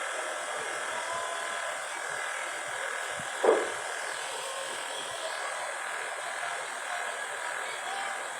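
A steady electric hum, with one short knock about three and a half seconds in.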